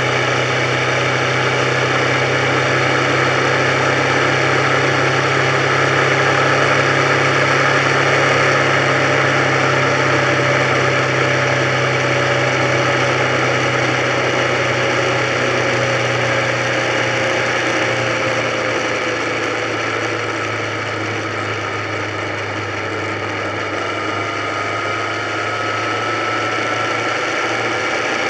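Motorcycle engine running at a steady road cruise, heard from the rider's own bike. It eases off a little past halfway, then picks up again near the end.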